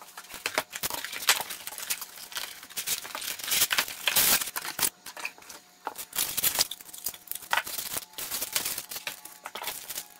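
A box being unpacked: many short, irregular rustles, crinkles and light knocks from cardboard packaging, a foam packing tray and small plastic parts bags.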